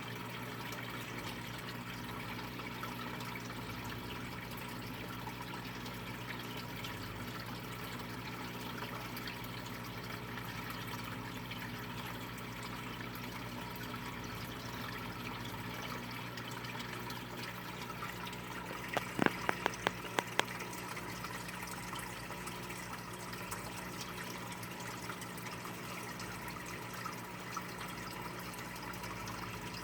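Steady hiss with a low electrical hum, broken about two-thirds of the way through by a quick run of about six clicks.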